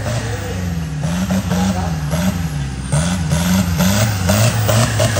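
Off-road 4x4 truck's engine revving up and down over and over as the throttle is worked.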